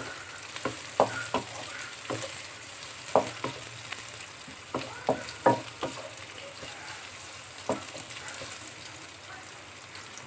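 Sliced onions and spring onions sizzling in hot oil in a pan, with irregular sharp knocks and scrapes of a utensil stirring them; the knocks stop about eight seconds in while the sizzle goes on.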